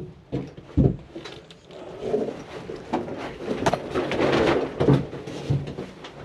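Scattered knocks and clatter, several separate short impacts spread through a few seconds, typical of work being done by hand.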